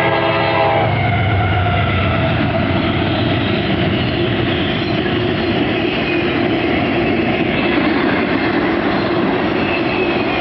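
CSX train running past close by, its locomotive horn chord cutting off about a second in, then a steady loud rumble and rattle of the wheels on the rails with faint high wheel squeal.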